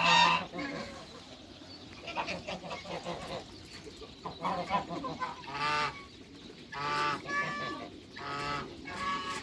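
Geese honking: a loud call right at the start, then a quieter stretch, then a run of separate half-second honks in the second half.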